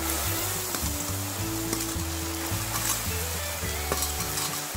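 Masala sizzling in a steel kadai as fried cauliflower, peas, green beans and carrot are tipped in from a steel bowl. Background music with a steady low bass line plays along.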